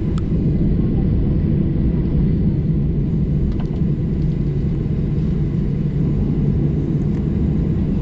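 Steady low rumble inside the cabin of a Boeing 737-800: the noise of its CFM56 jet engines and the airflow around the airliner.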